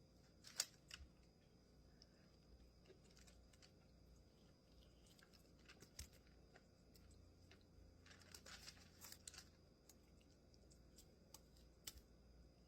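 Near silence broken by faint, scattered crunches and crinkles, the loudest about half a second in and a cluster near the end: someone quietly eating heavily breaded fried chicken wings.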